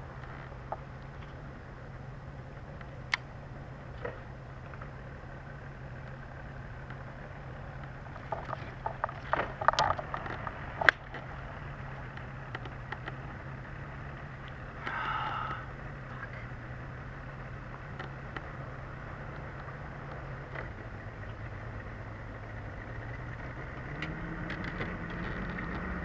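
Outboard motor of a nearby bass boat running with a steady low hum, dropping in pitch about twenty seconds in and rising again near the end, under a light hiss. A flurry of clicks and knocks about nine to eleven seconds in.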